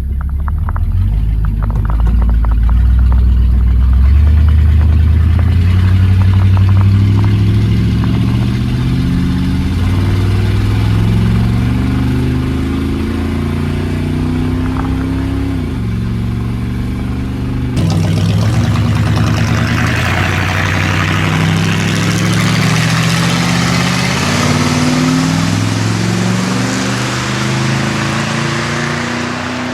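Ford LTD's V8 engine being revved, its speed stepping up and holding at several levels before dropping back, twice over. About eighteen seconds in the sound changes abruptly, with a lot more hiss over the engine note.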